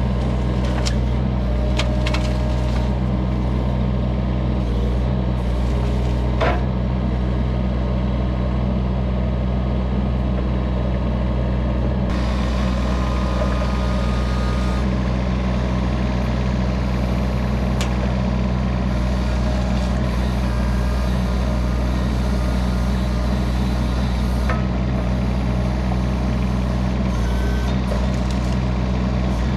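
Kubota U25 mini excavator's diesel engine running steadily while the boom, bucket and thumb work a brush pile, with a few sharp clicks.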